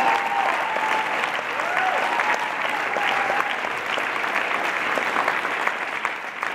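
Audience applauding, many hands clapping, with a few voices whooping in the first half; the clapping eases off slightly near the end.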